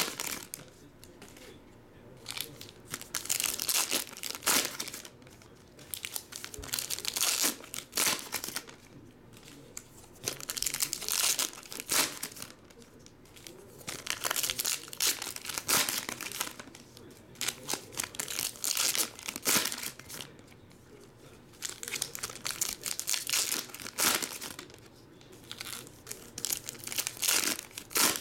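Foil wrappers of 2019 Optic football card packs crinkling and tearing as packs are handled and ripped open one after another, in short loud spells every couple of seconds with quieter gaps between.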